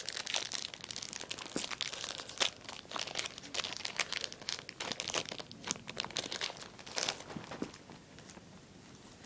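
Foil wrapper of a Yu-Gi-Oh booster pack being torn open and crinkled by hand: a run of irregular crackles and rips that dies away near the end.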